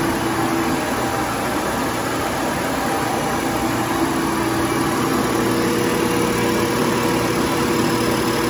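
Vertical milling machine running, its rotating cutter taking a steady cut across a wooden block and throwing off shavings: a continuous, even machining noise with a faint steady hum.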